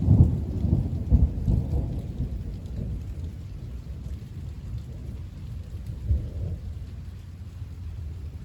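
Rolling thunder, loudest in the first two seconds, with a second smaller peak about six seconds in, then dying away.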